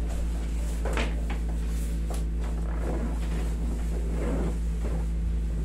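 Steady low hum under scattered rustling and a few light knocks as a person shifts and settles onto a padded massage table.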